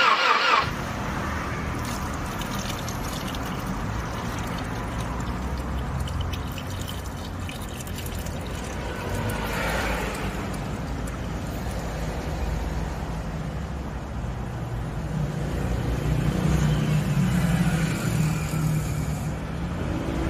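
Engine oil pouring in a steady stream from a Honda D15B's oil pan drain into a bucket, over a steady low mechanical hum. A short loud burst opens it.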